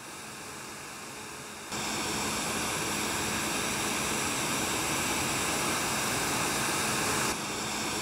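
Steady rushing noise of a combine harvester at work, stepping up sharply in level about two seconds in and dropping back near the end.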